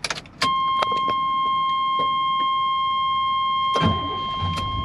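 A key clicking into the ignition of a 1989 Chevrolet Scottsdale pickup, then a steady, single-pitched warning tone from the dash as the key is turned on. Near the end the engine cranks briefly, catches and settles into a low idle under the tone.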